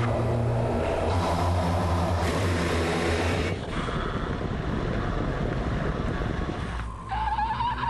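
Choir voices imitating a car: a steady low hum like an engine under a breathy, wind-like hiss. About seven seconds in, a high sung note with vibrato comes in.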